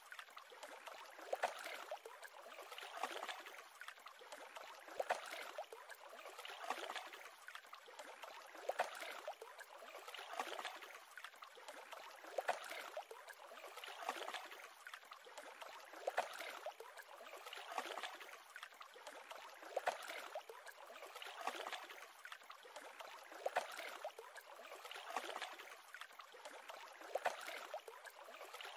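Small waves on a lake lapping, with a splash about every two seconds.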